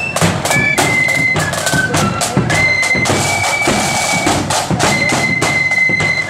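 A marching band of flutes and drums playing a tune. A high flute melody moves in held notes over constant heavy drumming, with frequent sharp drum strokes.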